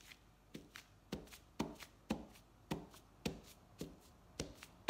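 A paint-loaded halved potato dabbed again and again onto a cotton tote bag laid over newspaper on a table, giving soft, dull taps about twice a second.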